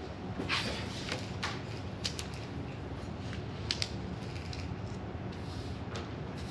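Writing on paper: short, scratchy strokes of a drawing tool coming in irregular bursts, densest about half a second to a second and a half in, with a few more near two seconds and near four seconds.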